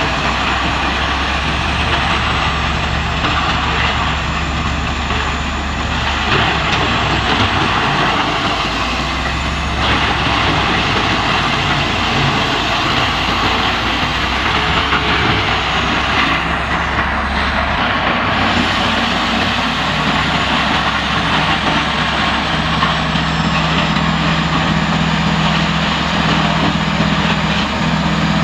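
Large industrial wood chipper running, with a heavy engine's steady drone under a dense grinding noise that swells and eases every few seconds.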